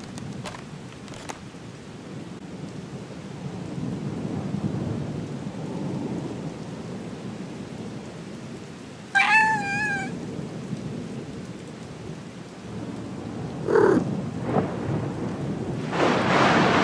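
Rain with a low rumble of thunder, with a cat meowing once, a short wavering meow, about nine seconds in. A brief low sound with a couple of knocks follows a few seconds later, and near the end a louder rush of noise swells up.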